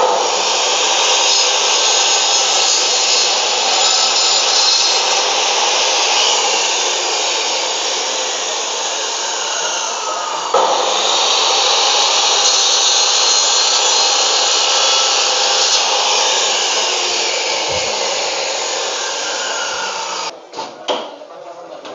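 Homemade bone-cutting saw, a 2000-watt Maktec motor driving a 7-inch, 100-tooth Makita aluminium-cutting blade, running loud and steady as it cuts through cattle bone and meat. A sharp jolt comes about halfway through. The sound falls away shortly before the end, followed by a few knocks.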